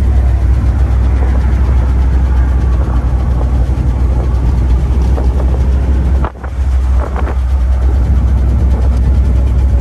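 Steady, loud wind and road rumble in a moving 1958 Chevrolet Impala convertible with the top down, briefly dipping about six seconds in.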